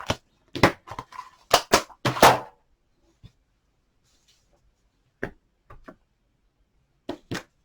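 Several sharp light clicks and taps on a desk, a cluster in the first two seconds and a few more from about five seconds on, with a quiet stretch between: small craft tools and supplies being handled during watercolouring.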